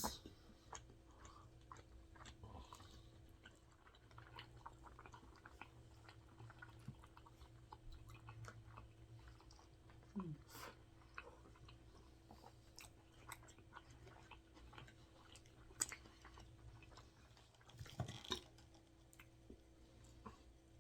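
Faint close-up chewing of a cheeseburger: soft, wet mouth sounds and many small clicks, with a short falling hum of "mm" about ten seconds in.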